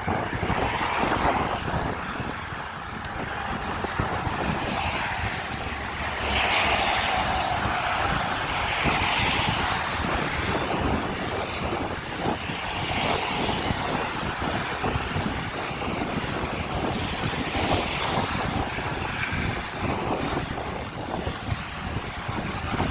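Strong headwind buffeting the microphone on a moving e-bike: a steady rushing noise with low rumble that swells and eases in gusts.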